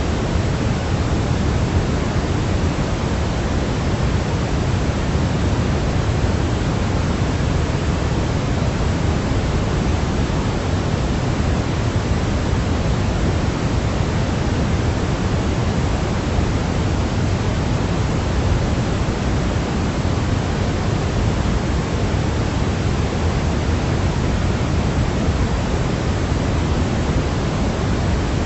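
Continuous white-noise track: a steady, unchanging hiss, heavier in the low end than at the top.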